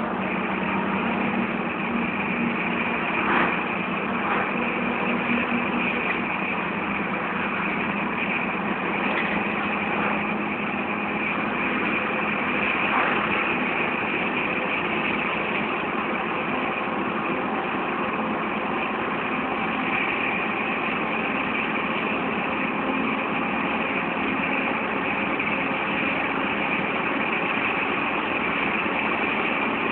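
A vehicle driving steadily along a road: an even mix of engine and road noise, with no change in speed or revs and a few faint knocks.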